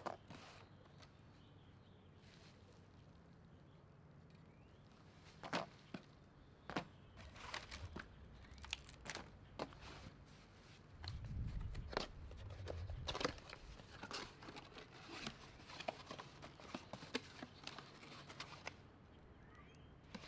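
Bike parts being unpacked from a small cardboard box: cardboard and plastic bags rustling and crinkling, with scattered sharp clicks of small parts being handled. The handling starts about five seconds in after a quiet stretch, and there is a brief low rumble midway.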